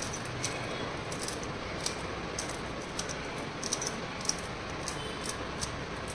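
Small kitchen knife slicing green chillies against a stainless steel plate: a string of light, irregular clicks as the blade cuts through and taps the plate, over steady background noise.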